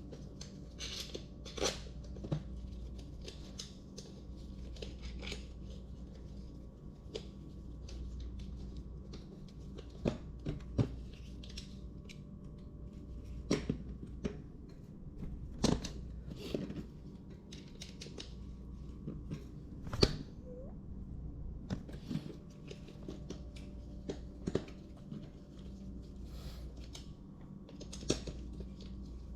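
Hex key driving screws back into an electric scooter's wheel assembly: scattered small clicks, scrapes and taps, with a louder knock about twenty seconds in, over a steady low hum.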